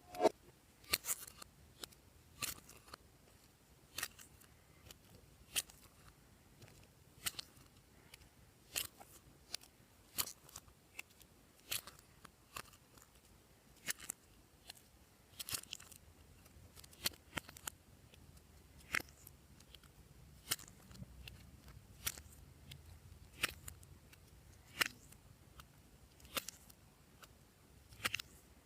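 Glossy slime being pressed and folded, giving sharp clicking pops about every one and a half seconds.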